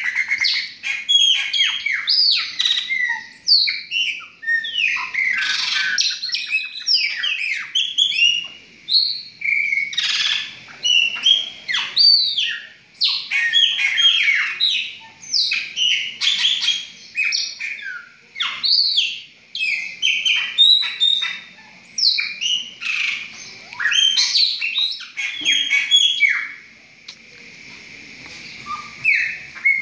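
Several caged chopi blackbirds (pássaro-preto, Gnorimopsar chopi) singing and calling together: a dense, overlapping stream of rapid chirps and sharp, gliding whistled notes, which thins out briefly near the end.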